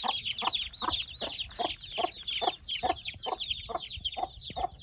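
Chicks peeping nonstop in high, falling chirps while a broody hen clucks steadily, a little more than two low clucks a second, the call a mother hen uses to keep her brood following her.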